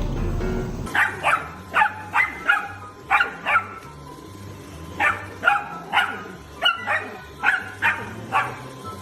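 Music for about the first second, then a dog barking repeatedly in short, high-pitched barks, in two quick runs with a pause of about a second in the middle. Quiet background music runs underneath.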